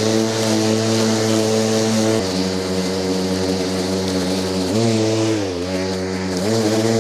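Milwaukee M18 Fuel 21-inch cordless lawn mower running while it cuts and collects grass: a steady electric motor hum over a hiss. The pitch steps down about two seconds in, sags further around five seconds and climbs back near the end, as the motor speed goes up and down with the grass it is cutting.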